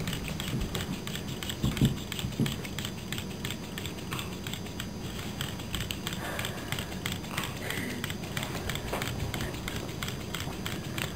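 Small solar-powered robot's motor and propeller turning it on its pin stand, a rapid, irregular clicking throughout, with a couple of soft knocks about two seconds in.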